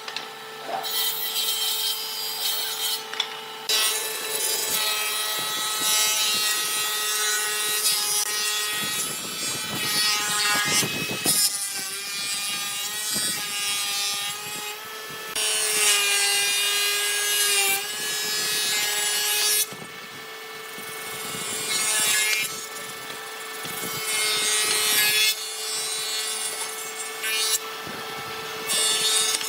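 Woodworking power tools running and cutting or sanding wood, a steady motor whine under scraping and rasping, with several abrupt changes from one tool sound to another.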